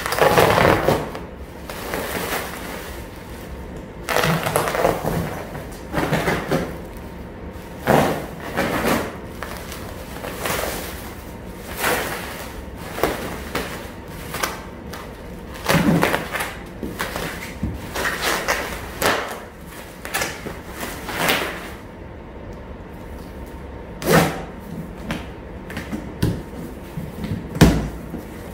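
A parcel being unwrapped by hand: black plastic stretch wrap cut and torn away, bubble wrap crinkling, and a cardboard box's flaps pulled open, as a string of irregular tearing and rustling noises with a sharp thump near the end.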